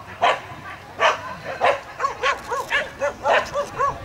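Small dog barking repeatedly in short, high barks, about a dozen, coming faster in the second half, while running an agility course.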